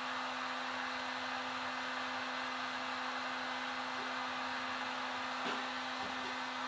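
Heat gun running steadily, a constant fan and airflow noise with a steady hum, with a small click about five and a half seconds in.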